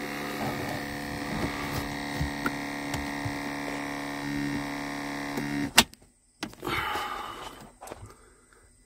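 Truck cab ventilation system making the strange noise of its fault: a steady hum with small ticks, which stops suddenly with a click about six seconds in. The noise comes from a failing HVAC actuator (servo) motor trying to turn.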